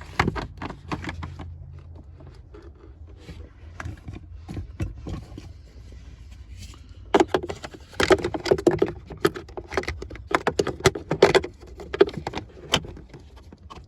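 Handling noise of a pleated cabin air filter being pushed into its plastic housing behind the glove box: scraping, rustling and many sharp plastic clicks and knocks, busiest in the second half, over a low steady hum.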